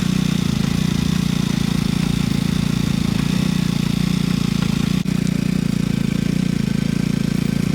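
Motorcycle engine idling steadily, with a fast even pulse.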